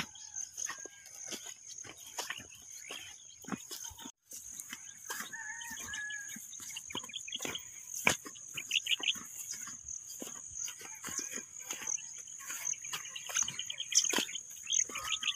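Rural field ambience: a steady high-pitched insect chirring, with scattered bird calls and frequent short clicks and knocks. The sound drops out for a moment about four seconds in.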